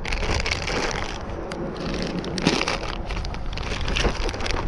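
Plastic soft-bait packet crinkling and rustling as it is handled and stuffed into a fabric tackle bag, with many small irregular crackles throughout.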